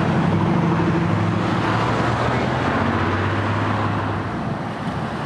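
Strong wind rushing over the microphone, with the steady hum of passing road traffic that drops away about four seconds in.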